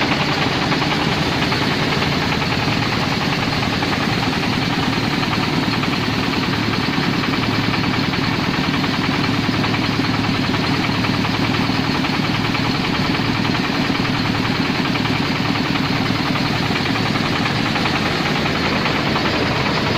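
Mobile rice mill running steadily: its Jiangfa 24 hp diesel engine and the belt-driven husker and polisher together make one even, unbroken mechanical din.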